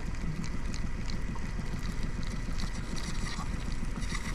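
Small fishing boat's engine idling with a steady low rumble, with faint light ticks over it.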